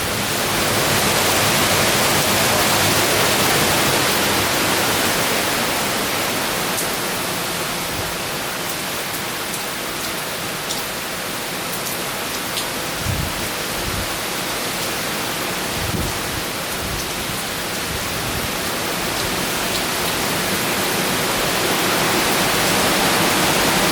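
Wind-driven rain from Hurricane Milton, heard as a steady hiss that swells in gusts, with a couple of brief low thumps about halfway through.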